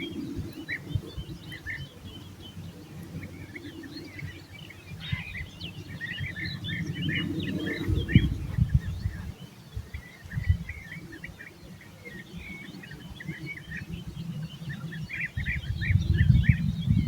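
Many small birds chirping and singing in quick short notes, over an uneven low rumble of wind noise on a basic phone-type microphone that drops away in the middle and swells again near the end.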